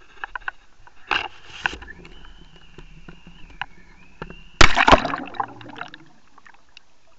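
A Water Wolf underwater camera on a method feeder rig being cast: a rushing noise about a second in as the rig is swung out, then a loud splash as it hits the water just under five seconds in, fading out over the next second.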